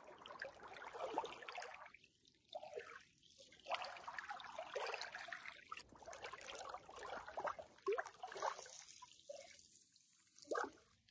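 Small waves lapping and splashing irregularly against shoreline rocks.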